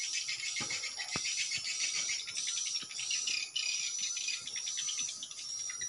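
Dense, rapid high-pitched twittering of edible-nest swiftlets, the lure calls played from a swiftlet house's tweeter speakers to draw the birds in, with a thin steady high tone running under it.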